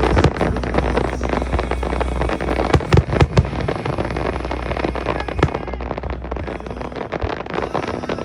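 Fireworks display: dense crackling with a run of sharp bangs, the loudest cluster about three seconds in.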